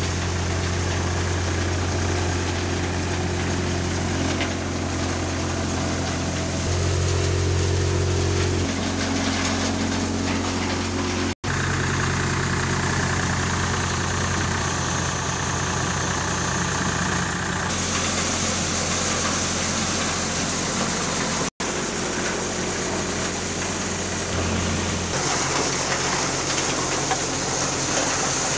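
Diesel tractor engines running steadily alongside a working threshing machine, a continuous mechanical drone, with a brief rise in engine pitch about seven seconds in. The sound cuts abruptly twice as the shot changes.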